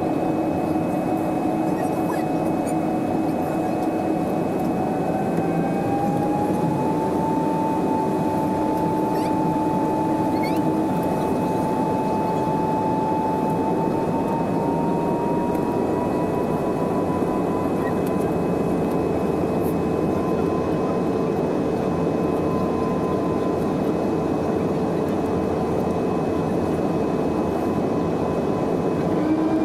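Steady roar of airflow and jet engines inside an Airbus A320 cabin during descent. Over it runs an engine hum that rises in pitch about five seconds in and again around fourteen seconds in.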